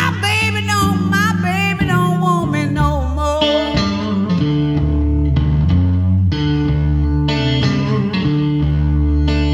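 Slow blues band music: a lead guitar playing bent, gliding notes over sustained bass notes and steady backing.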